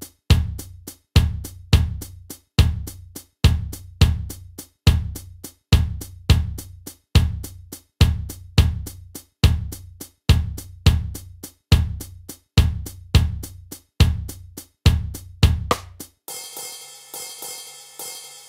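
Isolated drum kit playing a steady beat, with bass drum, snare and hi-hat strokes repeating evenly. About sixteen seconds in, the beat stops and the cymbals are struck lightly a few times and left ringing, fading away at the end.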